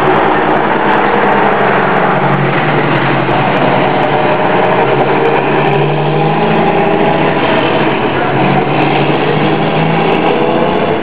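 A small engine running steadily, its pitch wavering slightly.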